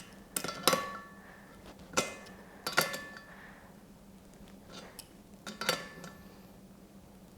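Irregular sharp metallic clinks, some briefly ringing, about six in all, from a tool and hardware knocking against the steel frame and caster fittings of a car dolly as its wheel bolts are tightened down.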